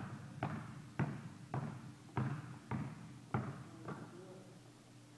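A basketball being dribbled on a hard indoor court floor, about eight bounces at roughly two a second, echoing in the gym, stopping about four seconds in.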